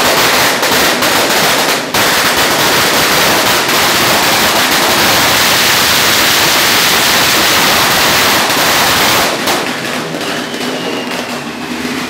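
A long firecracker string (a 'sawa', or Judas' belt) going off in a dense, rapid crackle of cracks for about nine seconds, then thinning to scattered pops.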